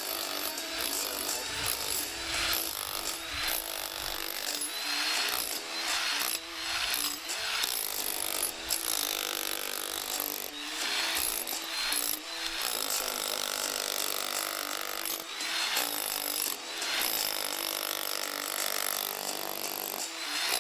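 GEKO 1050 W electric demolition hammer driving a flat chisel into a reinforced concrete fence post, hammering continuously with brief dips every few seconds.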